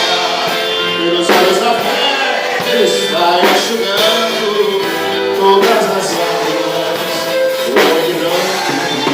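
A gospel band playing a worship song, with a sung melody over sustained instruments and drum hits every couple of seconds.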